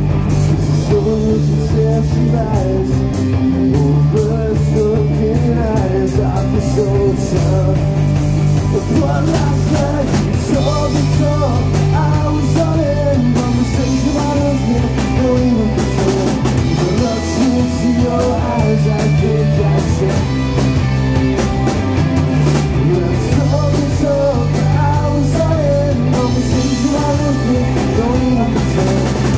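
Rock band playing live: drum kit, guitar and bass under a singing voice, with the bass line holding each note for a few seconds before changing.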